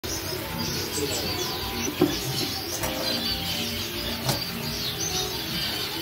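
Many caged Gouldian finches chirping and calling over each other in short, high notes, with a couple of sharp clicks about two and four seconds in.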